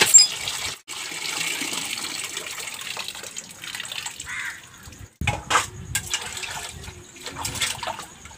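Water gushing from a hand pump's spout into a metal pot, steady for the first few seconds, then scattered splashes and short knocks from about five seconds in.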